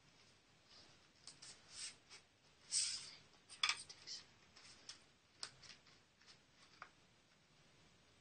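Hands opening drumstick packaging: faint, irregular rustling and crinkling with a few sharp clicks, loudest about three seconds in.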